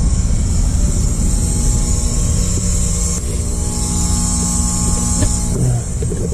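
Steady mechanical hum over a low rumble and a constant high hiss. The hum's tones fade out about five seconds in.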